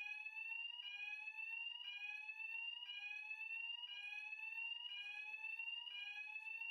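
Building fire alarm sounder going off in a repeating rising sweep. Each tone climbs for about a second, then drops back and starts again, about seven times.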